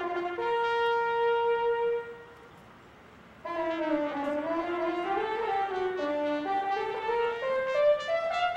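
Solo trumpet played by a racetrack bugler: a long held note that stops about two seconds in, a short pause, then a run of notes that slide and bend in pitch before settling into short stepped notes near the end.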